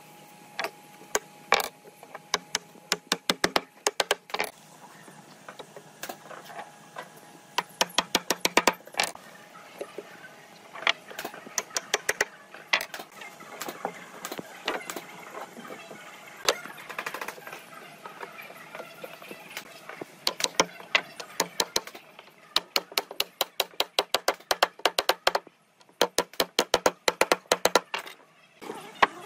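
Mallet tapping wooden joints together, in quick bursts of sharp knocks several times a second with short pauses between the bursts.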